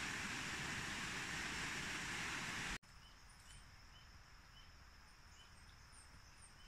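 Creek water rushing over rocks, a steady hiss. It cuts off abruptly about three seconds in, giving way to quiet outdoor ambience with a steady thin high tone and a short chirp repeating every half second or so.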